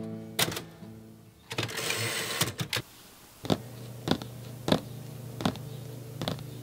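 Background music fades out and a brief rush of noise passes. Then slow typewriter keystrokes follow, about one every two-thirds of a second, over a low steady hum.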